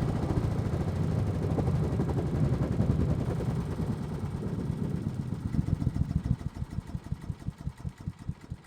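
Small gasoline engine of a wood chipper/mulcher running steadily, then winding down about halfway through. Its firing strokes slow and spread apart until it coasts to a stop near the end.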